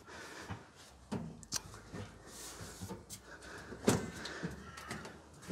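A few quiet clicks and knocks of hands working a clothes dryer's sheet-metal back panel into place, the sharpest about four seconds in.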